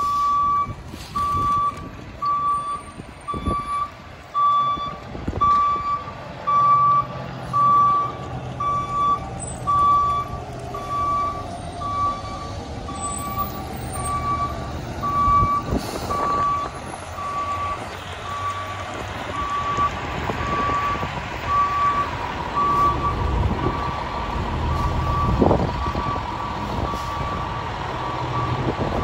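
Fire department aerial ladder truck backing up, its reversing alarm beeping steadily at one pitch over the engine running.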